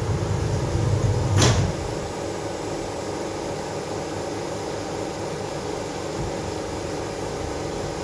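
Steady hum inside a Moscow monorail car, with a low rumble in the first second and a half and a short sharp clunk about a second and a half in.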